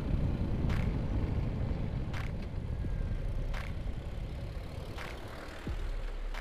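Suzuki Gixxer 155 single-cylinder motorcycle on its stock muffler, riding and slowing down: engine and wind rumble gradually fading. A faint click repeats about every second and a half.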